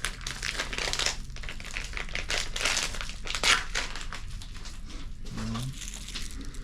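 Packaging crinkling and rustling in quick, irregular handfuls as a sheathed knife is unwrapped, loudest a little past the middle and easing off over the last couple of seconds.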